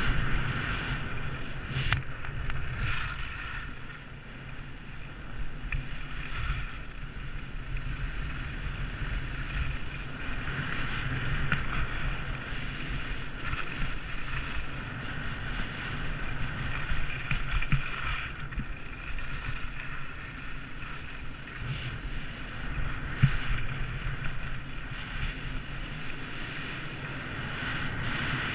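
Skis hissing and scraping over hard-packed snow on a downhill run, with a louder swish every few seconds as they turn, under steady wind buffeting the microphone.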